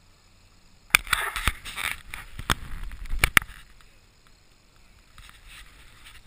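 Skis scraping and sliding over packed snow, with several sharp clacks. It starts about a second in, lasts a couple of seconds, then settles to a faint hiss of gliding.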